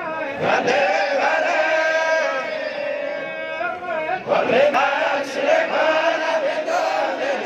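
A group of men chanting a Quran recitation together, with long held notes. The voices break off briefly and start a new phrase about four seconds in.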